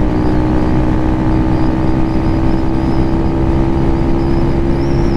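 Lifan KPM 200 motorcycle engine running at a steady highway cruise, a steady drone under a rush of wind and road noise.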